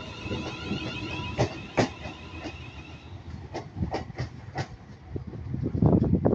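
London Northwestern Railway electric multiple unit pulling away, its wheels clicking over rail joints, with a high wheel squeal that fades out about three seconds in as the train draws off. A louder low rumble comes near the end.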